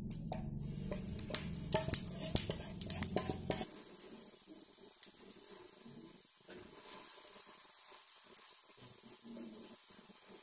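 Batter sizzling and crackling as it is poured into hot oil with cumin and mustard seeds on a tawa. A low hum underneath cuts off suddenly about three and a half seconds in, leaving a softer sizzle with scattered crackles.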